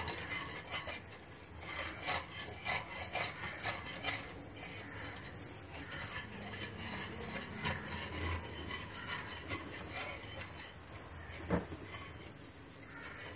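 A utensil being stirred quickly through thin liquid in a cooking pot, in rapid irregular scraping strokes against the pot, with one louder knock near the end. The stirring is fast to keep the added flour from forming lumps.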